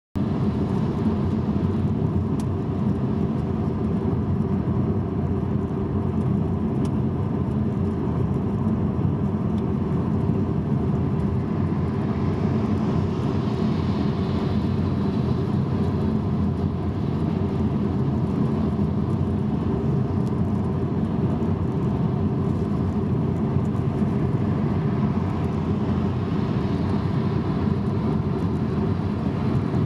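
Steady road noise inside a car driving on a wet motorway: an even low rumble of tyres and engine, with a faint higher hiss swelling briefly about halfway through and again near the end.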